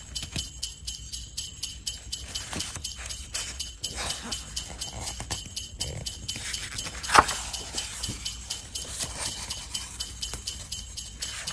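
Sleigh bells jingling in a steady rhythm, about three to four shakes a second, with one sharper hit about seven seconds in.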